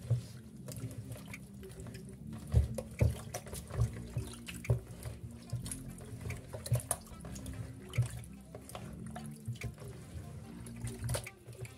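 Hands squeezing and rubbing raw chicken pieces in a plastic bowl of water mixed with wheat flour, with irregular splashes and sloshes.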